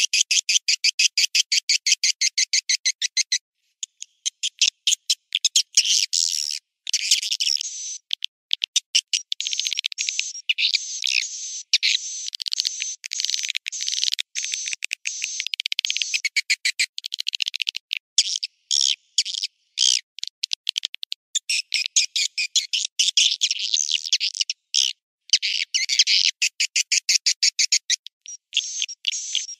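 Swiftlet call recording, a lure track played to draw swiftlets to a nesting house: rapid, densely repeated high-pitched twittering chirps with nothing low, broken by a few brief sudden cut-outs.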